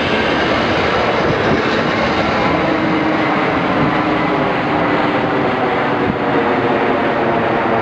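Matangi electric multiple unit running along the track away from the platform: a steady rush and rumble of the train with faint whining tones.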